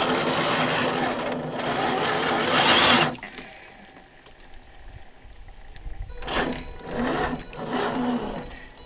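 Electric motor and gear drivetrain of an RC scale Land Rover Defender 90 crawler whining under throttle, running steadily for about three seconds, then cutting off suddenly. Near the end it comes back as three or four short bursts of throttle.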